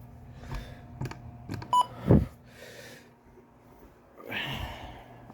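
Button clicks on a weather alert radio, with one short electronic beep less than two seconds in. A dull thump of the radio being handled follows, and near the end there is a brief rush of noise.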